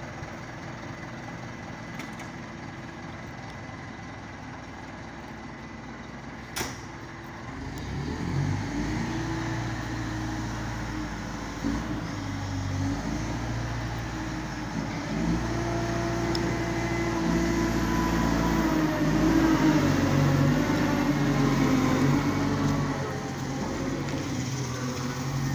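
Liebherr reach stacker's diesel engine idling, with one sharp knock about six or seven seconds in. The engine then revs up and down as the machine works its boom and moves off, growing louder and peaking in the second half.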